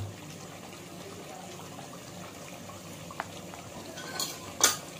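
Metal kitchen utensils clinking against dishes: a faint tick about three seconds in, then two sharper clinks near the end, over a steady low background noise.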